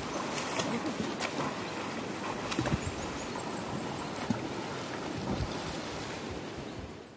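Shallow river water running steadily, with splashing in the water farther off and a few sharp ticks.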